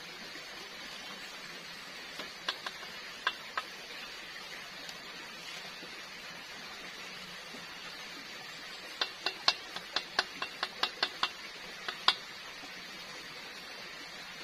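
Wooden chopsticks clicking against a metal frying pan as potato fries are lifted out of the oil: a few clicks early, then a quick run of about a dozen sharper clicks near the end. A steady hiss runs underneath.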